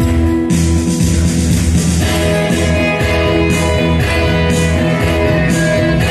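Live instrumental music: an electric guitar playing over held keyboard notes and a steady bass line, with a bright accent about once a second.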